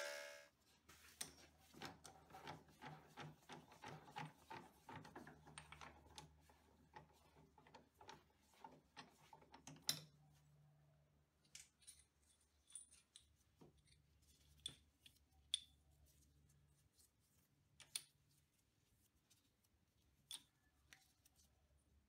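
Faint, scattered small metallic clicks and taps, with a sharper click about ten seconds in, over a faint low hum.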